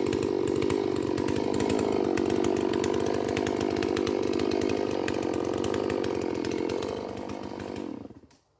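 Holzfforma G444 two-stroke chainsaw, a Stihl MS440 clone, running steadily, then dying away near the end.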